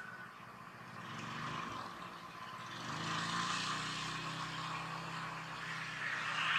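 A distant engine droning steadily, coming in about three seconds in and growing louder toward the end, over a steady hiss.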